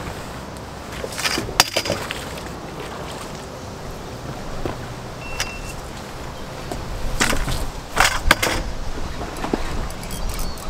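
Knocks and footfalls on the boards of a wooden dock: a few sharp clacks about a second in and a louder cluster of knocks around seven to eight seconds, over a steady low outdoor rumble.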